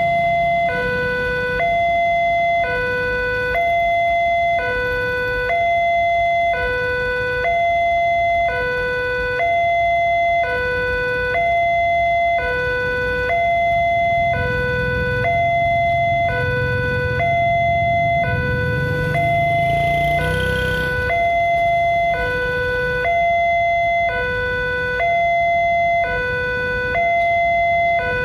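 Railway level-crossing warning siren of the "Alarm Indonesia" type sounding two alternating tones, high then low, each held just under a second, while the crossing barriers are down: the warning that a train is approaching.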